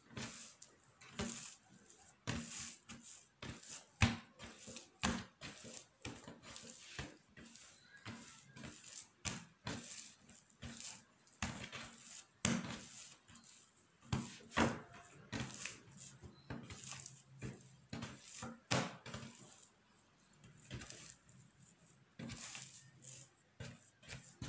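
Irregular clicks, taps and clatter of kitchen utensils and dishes being handled, one to three sharp knocks a second.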